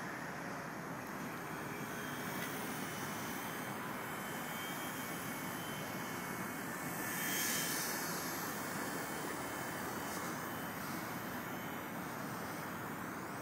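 Small electric RC helicopter (Nine Eagles Solo Pro) in flight, its rotor and motor whirring steadily, swelling louder and brighter for a moment about seven seconds in as it passes close.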